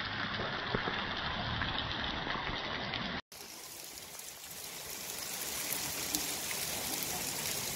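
Heavy rain pelting wet pavement and puddles, a dense hiss with scattered sharp drop ticks. The sound breaks off for an instant about three seconds in, then resumes as a softer, hissier downpour that builds again.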